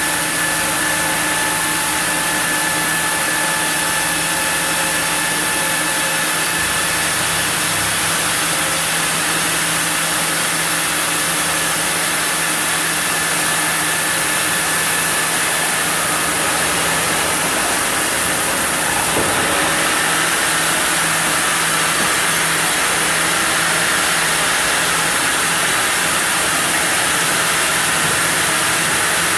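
Sawmill machinery milling a zelkova block, running steadily with a constant motor hum and a high hiss.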